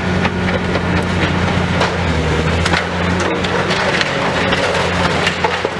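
Demolition excavator's engine running steadily under a dense, irregular crackle of breaking and crunching building debris.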